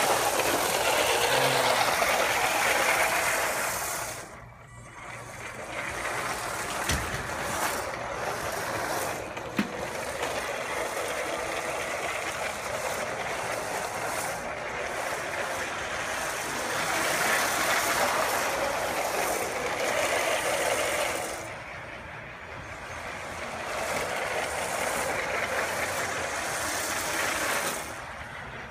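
Battery-powered LEGO toy train running on plastic track: a steady motor whirr and wheel rattle that swells and fades as it goes round the loop, dropping away briefly twice.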